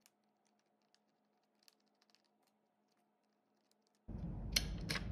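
A small screwdriver working on a plastic tracker case: a few faint clicks, then about four seconds in the room noise comes up and two sharp plastic clicks sound as the case top is levered off.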